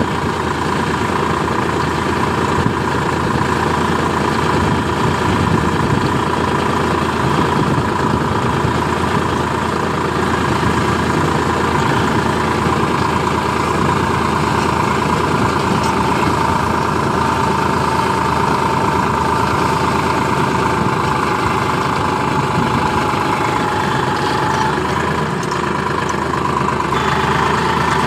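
Tractor's diesel engine running steadily under load while pulling an inter-row cultivator through a maize field, heard from the driver's seat, with a steady whine in the mix.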